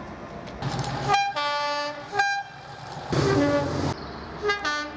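Train horn sounding a run of blasts, some short and some about a second long, changing pitch from one blast to the next in a multi-tone pattern, over the rumble of the passing train.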